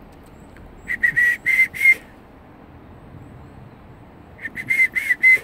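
A person whistling short, breathy notes of steady pitch, a quick group of four or five notes, then after a pause a second group near the end.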